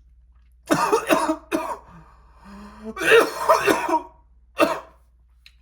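A woman coughing and clearing her throat in several harsh fits, with a short hum in between: a reaction to the burn of very hot Nashville-style chicken.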